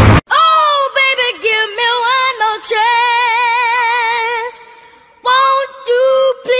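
A high-pitched voice singing unaccompanied: a few short sliding notes, then one long note held with wide vibrato that fades away, and after a short gap a few more held notes.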